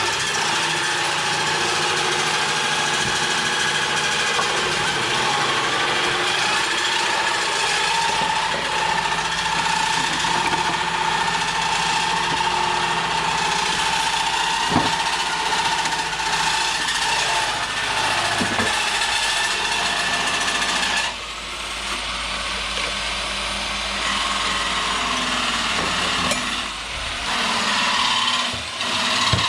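An electric power tool's motor running steadily with a high whine, with a couple of sharp knocks; the sound drops in level about 21 seconds in.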